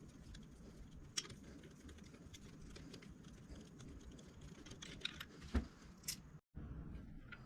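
Faint scattered metallic clicks and taps of hand tools and loose parts being handled during engine disassembly.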